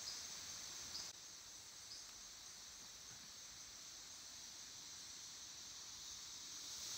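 Faint rainforest ambience: a steady high-pitched insect drone over a low hiss, with a few short faint chirps in the first two seconds. The level drops slightly about a second in.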